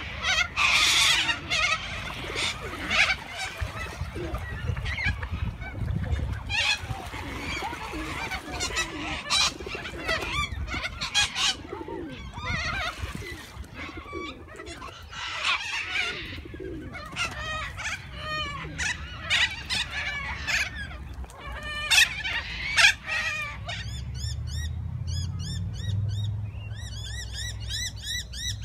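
A flock of waterbirds calling, with many harsh squawks and honks overlapping and the loudest calls coming a few seconds before the end. Near the end these give way to a fast, even run of high, repeated bird chirps over a low rumble.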